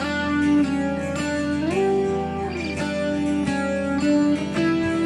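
Background music led by a plucked string instrument, its notes sometimes sliding up and down in pitch.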